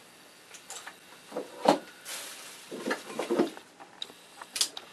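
Knives and other small objects being handled on a tabletop: a few knocks and clicks, the loudest about a second and a half in, a brief rustle of a plastic bag, and a sharp click near the end.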